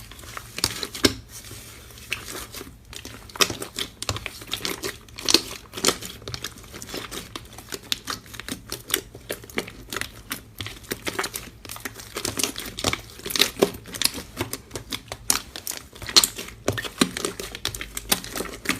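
Slime being squished and worked by hand, a dense run of irregular sticky crackles and small pops.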